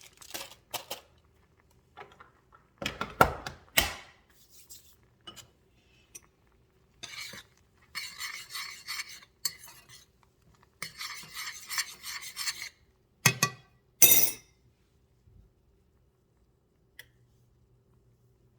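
Kitchen handling sounds: scattered knocks and clatter of dishes and utensils, with two longer stretches of scraping or rubbing in the middle and a few louder knocks.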